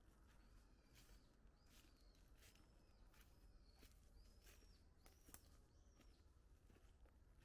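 Faint footsteps crunching through dry fallen leaves at a steady walking pace, with birds giving short, high, rising-and-falling calls over and over.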